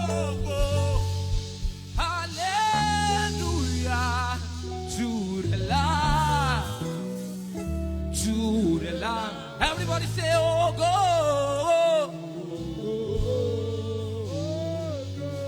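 Gospel worship music: a singer's melismatic runs with heavy vibrato over sustained keyboard and bass chords.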